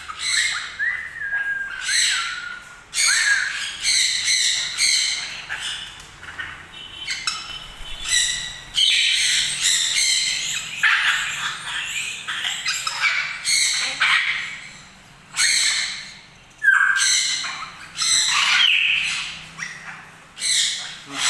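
Parrots squawking and screeching over and over, loud harsh calls coming about every second, with a few short falling whistles near the start.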